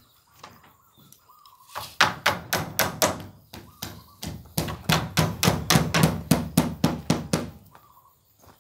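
Hammer striking the wooden frame of a plywood wall: two runs of rapid blows, about five a second, with a pause of about a second between them. The second run is longer.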